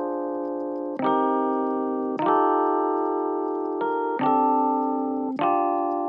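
Background music: slow keyboard chords in a piano sound, a new chord struck about once a second and left to ring and fade.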